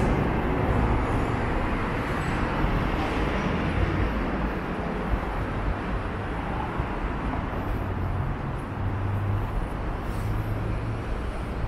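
City street ambience with road traffic passing: a steady, unbroken rumble of engines and tyres.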